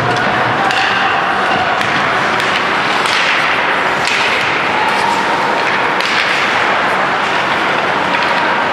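Ice hockey play in a rink: a steady wash of skates scraping the ice and distant shouting, with several sharp clacks of sticks and puck.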